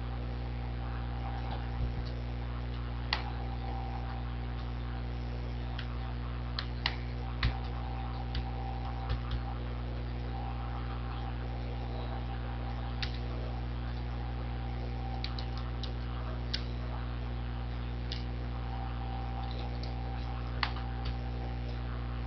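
Steady electrical mains hum from the recording setup, with a dozen or so sharp, irregular computer mouse clicks as selections are drawn on screen.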